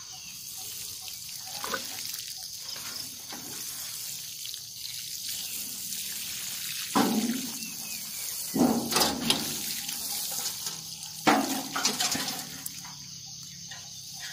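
Water sprinkling from the rose of a metal watering can onto soil, a steady hiss and patter, with a few louder knocks about seven, nine and eleven seconds in.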